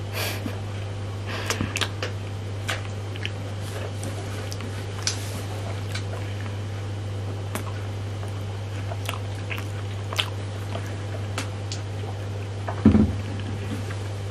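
Close-up eating sounds from a matcha ice cream bar: scattered short wet clicks of biting, licking and chewing, over a steady low hum. One louder dull thump near the end.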